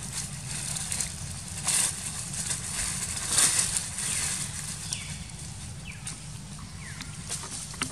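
Dry leaf litter rustling and crunching as macaques move about on it, with the loudest surges about two and three and a half seconds in, over a steady low hum.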